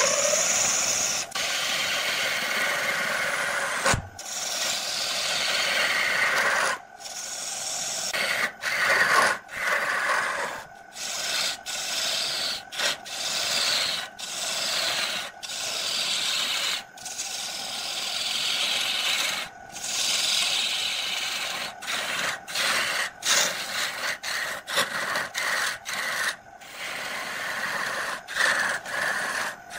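Turning tool cutting a spinning segmented wood blank on a lathe: a rough scraping hiss in repeated passes, broken by many short gaps as the tool comes off the wood. The lathe motor hums steadily underneath.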